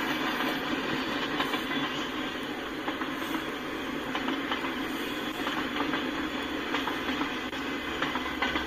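Freight cars rolling past at speed: a steady rumble and rattle of steel wheels on rail, with irregular clicks as the wheels cross rail joints.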